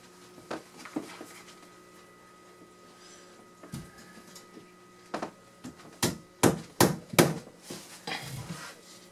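Hammer driving finishing nails into wooden trim: a few light taps early, then a quick run of sharp blows, roughly two a second, in the second half.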